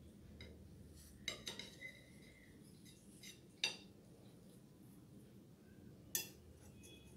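A metal knife and then a metal cake server clinking against a ceramic plate as a slice of cheesecake is cut and lifted. There is a quick cluster of light clinks about a second in, a sharper single clink at about three and a half seconds, and another near the end.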